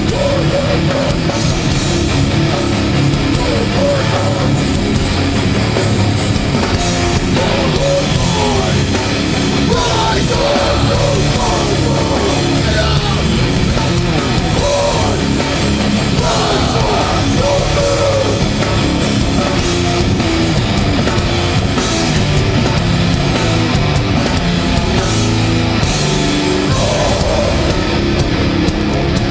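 Live hardcore band playing loud and steady: heavily distorted electric guitars, bass and a pounding drum kit, with some shouted vocals in places.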